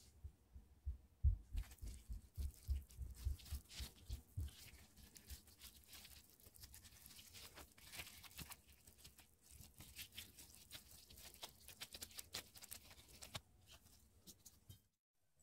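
Sticky hotteok dough squelching and pulling apart in gloved hands as it is pressed and wrapped around a vegetable-and-egg filling. There are soft thumps in the first few seconds, then many small sticky clicks and crackles.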